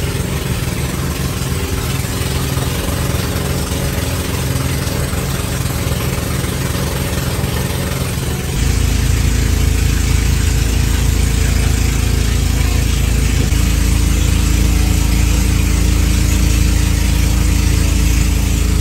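An engine running steadily. About eight and a half seconds in it gets louder and deeper, and its note shifts again a few seconds later.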